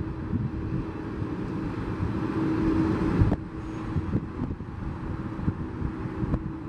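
Boeing 767 freighter's twin jet engines running at taxi power: a steady hum with one held mid-pitched tone. Brief sudden breaks come about halfway through and near the end.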